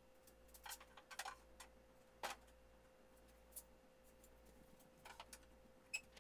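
Faint, scattered light clicks and knocks of poplar face-frame strips being handled and set down on a plywood cabinet carcass, about half a dozen over a few seconds.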